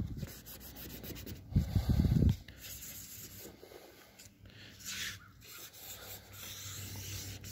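Paper towel rubbing and wiping petroleum jelly off the painted edge of a steel truck door, coming and going in short scrubbing strokes. A muffled low bump about one and a half seconds in is the loudest thing.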